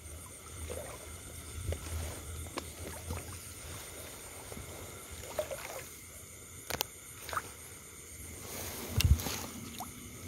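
Faint rustling of bamboo branches and grass, with scattered clicks and taps, as long snake tongs holding a snake are pulled back out of a bamboo clump. There is a soft thump about nine seconds in.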